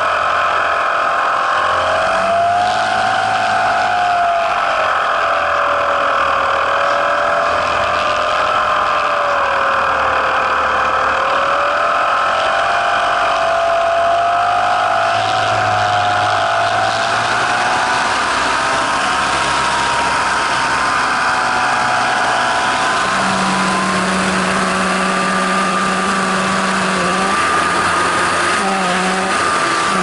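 Onboard sound of a model T-28 airplane's motor and propeller whining steadily, its pitch drifting slowly up and down with throttle, over wind rushing across the plane. A low hum comes and goes near the end.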